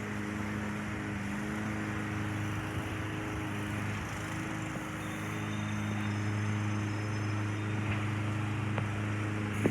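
A large engine running steadily, a low hum that holds its pitch, with a short click at the very end.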